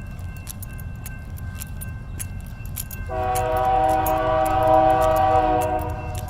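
A freight train rumbles past with scattered sharp clicks. About three seconds in, a GE freight locomotive's air horn sounds one chord, held for about three seconds.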